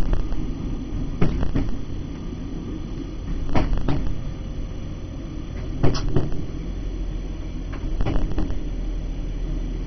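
Diesel multiple unit running, heard inside the driver's cab: a steady low rumble with sharp knocks every second or two from the running gear on the track.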